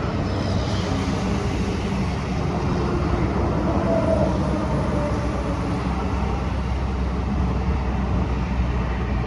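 Steady vehicle rumble and road noise, swelling slightly about four seconds in.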